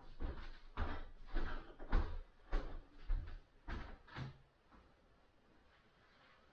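Barefoot footsteps on a wooden floor: a run of dull thuds, about two a second, that stop a little over four seconds in.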